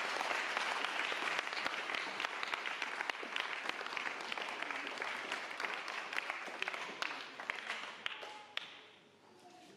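A congregation applauding: dense clapping that dies away near the end.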